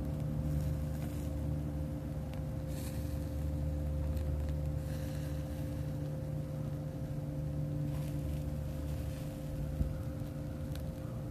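A steady low drone with several fixed tones, like a motor running, with a few faint ticks over it.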